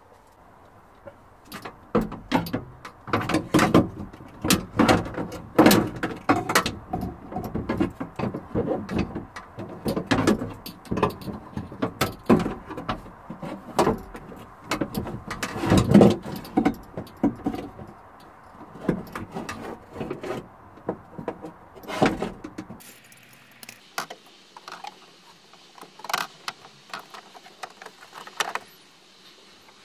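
Irregular clanks, knocks and rattles of metal and plastic parts being handled inside a stripped car door shell as the window regulator is worked in the door cavity. The knocks stop about three quarters of the way in, leaving only a few faint clicks.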